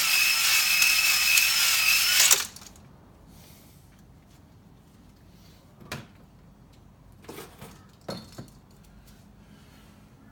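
Electric drill spinning a cylinder hone in a Toyota 4E-FTE engine bore, a loud scraping run with a whine that cuts off suddenly about two seconds in. A few light knocks follow. The hone is putting a cross-hatch back into the glazed bore so the new rings will seal.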